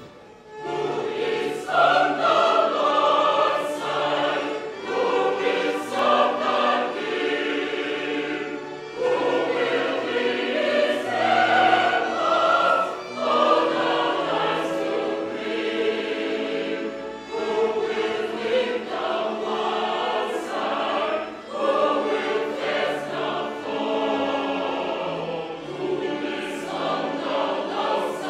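A choir singing a hymn in harmony, in phrases of a few seconds with short breaths between them.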